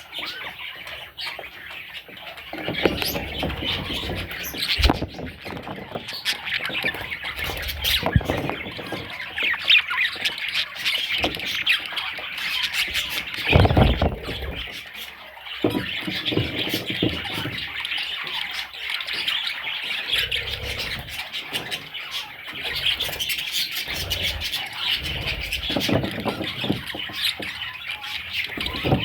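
Several budgerigars chattering, chirping and squawking without pause, with a few low thumps mixed in.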